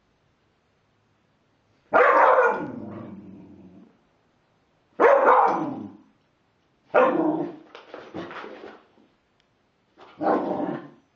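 Young dog barking at a bee on the floor, four separate barks a few seconds apart.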